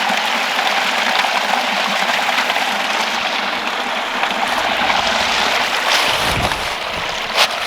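Stream water rushing steadily over rocks. A brief low rumble comes about six seconds in, and a sharp click near the end.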